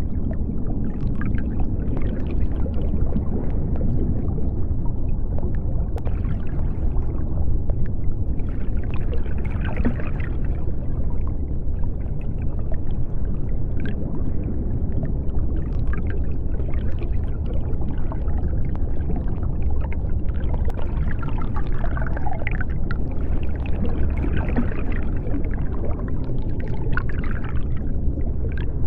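Underwater ambience: a steady deep rumble of water with bubbling and gurgling, and faint wavering higher tones that swell now and then, most around ten seconds in and again in the second half.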